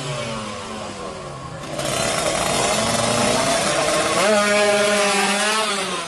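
Two-stroke Kawasaki Ninja R drag-bike engine being revved: the revs fall away over the first second, it runs on roughly, then about four seconds in it is blipped up and held high for over a second before dropping back.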